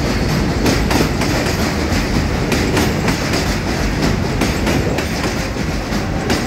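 R188 subway train pulling out of the station and passing close by, a steady rumble with repeated clicks as its wheels cross the rail joints.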